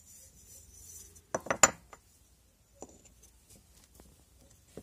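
Halves of a plaster casting mold for lead fishing jigs clacking together as they are closed by hand. There is a quick cluster of hard clicks about a second and a half in, then a couple of faint taps.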